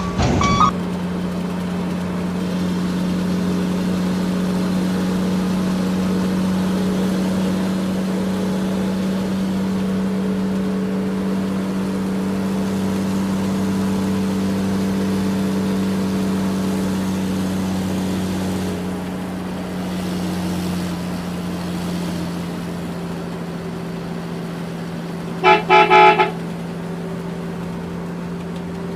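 A vehicle engine drones steadily, with three quick horn toots near the end.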